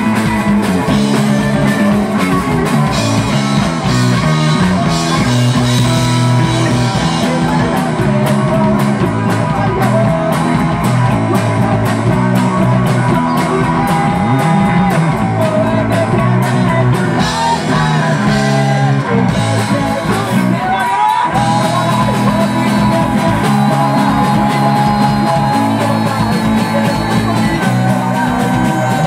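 A live rock band playing loudly: electric bass, electric guitar and drum kit, with a singer's voice.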